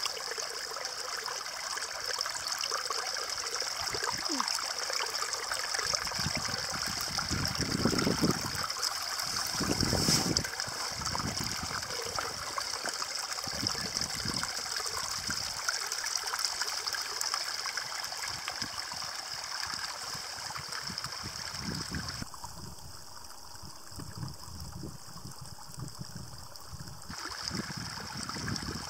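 Small flow of spring water trickling and running over rocks, a steady watery hiss, with two brief louder low rumbles about eight and ten seconds in.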